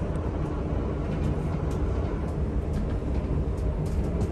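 Steady low rumble of a passenger ferry's engines and hull vibration heard from inside the vessel's small washroom, with light clicks and rattles now and then.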